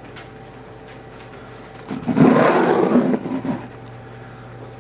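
Scraping, rustling handling noise from the camera being swung across to a new part of the whiteboard. It comes about two seconds in and lasts about a second and a half, over a low steady room hum.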